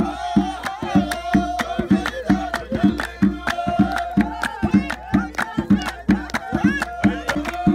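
Hand drums beaten in a steady rhythm while a group of men sing and clap.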